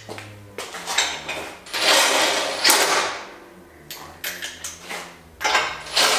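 Cordless power tool spinning the lug nuts of a spare wheel onto a rear tire carrier, in several bursts of up to a second with pauses between.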